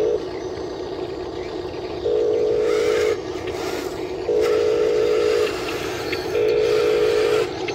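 Electronic warning beeps from a radio-controlled wheel loader model as it climbs onto a trailer. Four long, steady beeps of about a second each, roughly two seconds apart, over a constant motor hum.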